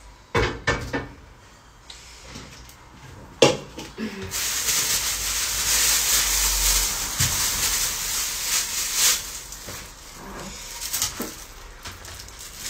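Kitchen handling sounds. Bowls and dishes clink and knock on the counter near the start, with a sharp knock about three and a half seconds in. Then a steady rushing hiss lasts about five seconds, followed by scattered small knocks and rustles.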